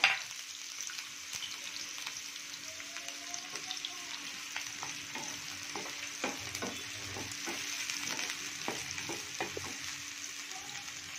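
Chopped onions sizzling in hot oil in a frying pan, with the scrapes and knocks of a wooden spatula stirring them, more often in the second half.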